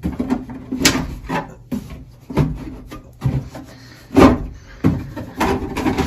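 The plastic front cover of a SEISCO tankless electric water heater being handled while it is taken off: a series of irregular knocks and clicks with rubbing in between, the loudest a little past the middle.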